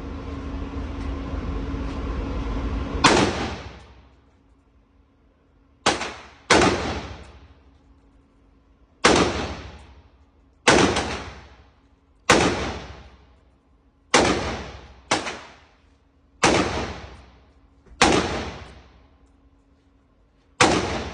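AR-15 rifle firing single shots at an uneven pace, eleven in all, the first about three seconds in after a rising rush of noise; each shot trails off over about a second.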